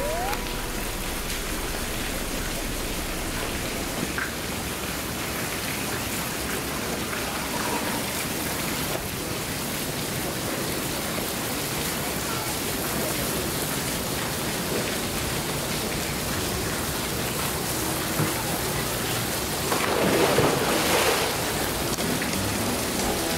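Steady rushing hiss of water, with a louder burst of splashing a little before the end.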